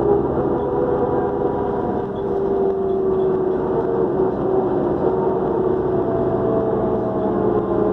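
New Flyer D40LF diesel transit bus under way, the engine running with a steady turbocharger whine over it. The whine wavers slightly in pitch as the bus changes speed.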